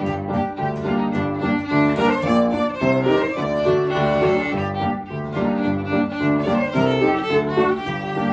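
Two fiddles playing a contra dance tune in unison with piano and acoustic guitar accompaniment.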